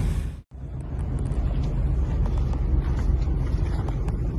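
Wind buffeting the microphone, a steady low rumble with a few faint ticks. The sound drops out briefly about half a second in.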